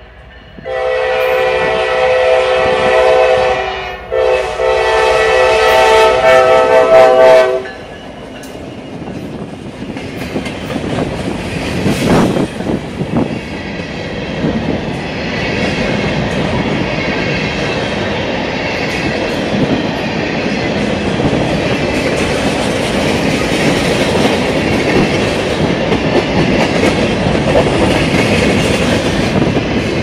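Norfolk Southern GP59E locomotive's air horn sounding several tones at once in two long blasts, then the train rolling past close by, hopper cars and wheels clacking over the rail joints for the rest of the time.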